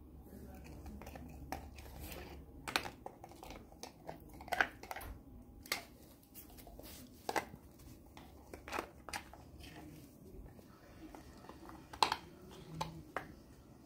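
Black Labrador chewing and gnawing a hard dried meat chew: irregular crunches and sharp cracks as its teeth work the treat, the loudest crack near the end.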